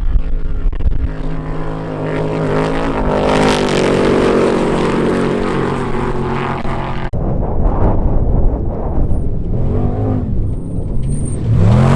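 Off-road race vehicle engines running hard. One engine note swells and holds at high revs for several seconds, then breaks off abruptly about seven seconds in. A second vehicle follows, its revs rising and falling in quick sweeps near the end.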